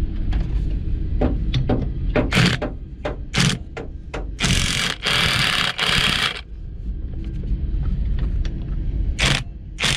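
Cordless 1/2-inch drive right-angle impact wrench running and hammering on a fastener, a steady mechanical rattle with sharp knocks and a longer run of louder hammering about halfway through.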